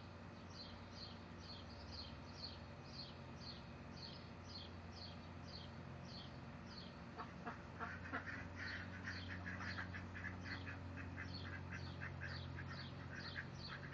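Domestic mallard-type ducks quacking, in a quick run of short calls from about halfway through. A high chirp repeats about twice a second in the background, over a low steady hum.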